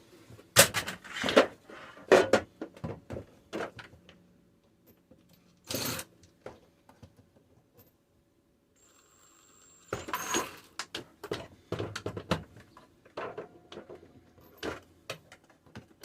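Irregular knocks, clicks and short scrapes of parts and hand tools being handled while the front of an RV refrigerator is taken apart, with a lull of a few seconds about halfway through.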